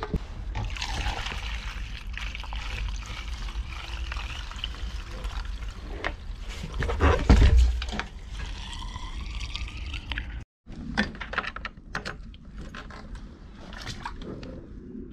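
Liquid poured through a plastic funnel into a portable boat fuel tank, a continuous pouring sound that is strongest about seven seconds in. After a cut about ten seconds in, a few sharp clicks and knocks of handling.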